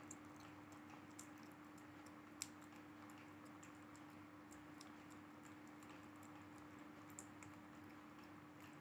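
Faint, irregular little clicks of a kitten eating wet cat food from a plastic tub, one sharper click about two seconds in, over a low steady hum.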